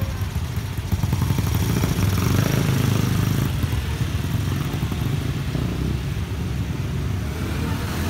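Small motorcycle engines and a car engine running and pulling away as waiting road traffic moves off over a railway level crossing. The engines are loudest about two to three seconds in.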